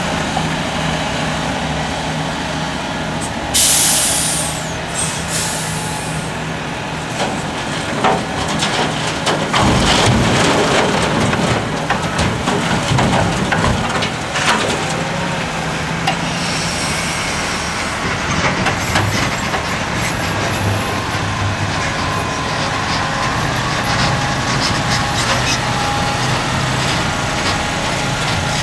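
Diesel engines of a Liebherr R974B crawler excavator and a Mercedes-Benz SK dump truck running steadily, with a loud air-brake hiss from the truck about three and a half seconds in. From about ten to fifteen seconds in, a bucketful of rock and earth crashes and rattles into the truck's steel tipper body.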